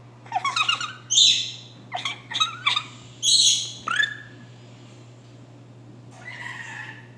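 Harsh screeches and short chirping calls from a green-naped lorikeet, mixed with a person's close-up screech imitations. Loud screeches come about a second in and again around three seconds, with a quick run of short calls between them. After a pause, softer chattering follows near the end.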